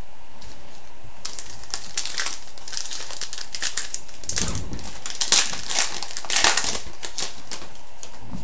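Crinkling and rustling of a trading-card pack wrapper being handled, in irregular bursts that grow busier midway.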